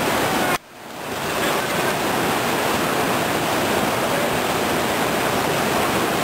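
Whitewater river rapids rushing steadily. About half a second in the sound cuts out briefly and fades back up.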